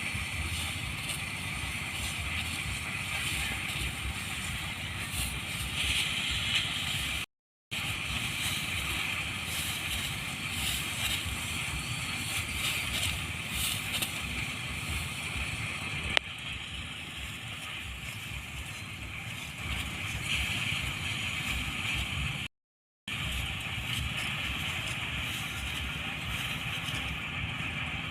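Small engine-driven rice thresher running steadily. The sound cuts out completely twice, briefly.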